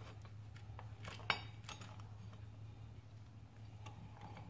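A few faint metal clicks and clinks from a C-clamp being screwed down on a 4L60 transmission's servo piston, compressing the servo spring to expose its snap ring; one click just over a second in is louder. A steady low hum runs underneath.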